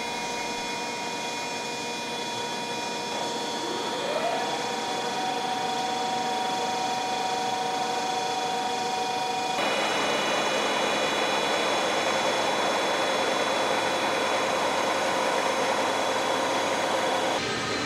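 Large PAMA horizontal boring and milling machine running, with a steady machine whine and several steady tones. One tone rises in pitch about four seconds in and then holds. About ten seconds in the sound turns rougher and noisier as the milling head works on the face of a large metal ring.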